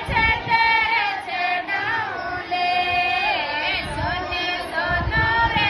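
Women singing a Mataji geet, a Marwari devotional folk song to the Mother Goddess, in long held, wavering notes.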